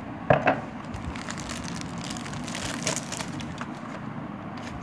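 Clear plastic bag crinkling and rustling as grey plastic model-kit sprues are handled and lifted out of the box, with sharper crackles about a third of a second in and again around three seconds in.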